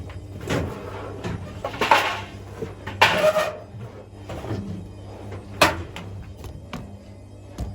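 A series of clunks, knocks and short scrapes from hands working on an Indesit Moon washing machine's panels and parts, over a low steady hum. The loudest come about two and three seconds in, with a sharp knock midway.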